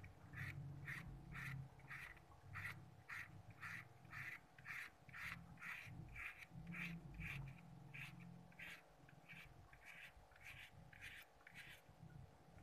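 Faint crisp cuts of a knife slicing through a green bell pepper held in the hand, about two and a half cuts a second, stopping shortly before the end.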